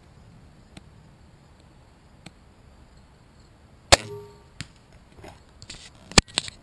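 A compound crossbow fires about four seconds in: one very loud, sharp snap of the released string and limbs, with a brief ringing after it. Near the end comes a cluster of clicks and knocks, one of them nearly as loud as the shot.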